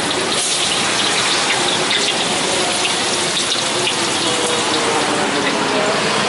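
Blocks of tofu deep-frying in a wok of hot oil: a steady sizzle.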